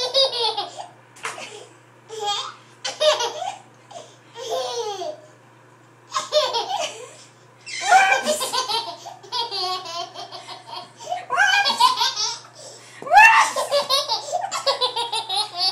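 Baby laughing hard in repeated bouts. Each bout is a run of quick, high-pitched pulses, with short breaths between.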